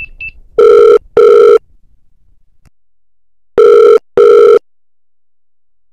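Telephone ringing tone in a double-ring pattern, two short rings in quick succession, heard twice about three seconds apart: the call is ringing out unanswered.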